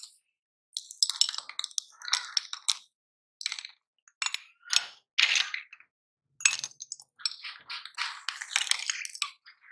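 Chalk sticks cracking and crunching as a meat grinder crushes them, in short bursts of sharp crackling separated by silent gaps.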